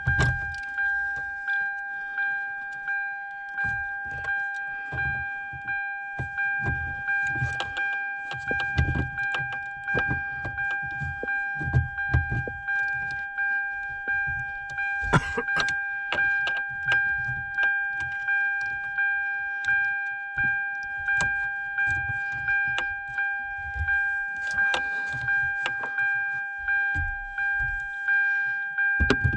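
Irregular clicking, tapping and rattling of small plastic and metal parts as the ignition switch and key are handled and worked into the steering-column housing. A steady high-pitched tone sounds underneath throughout.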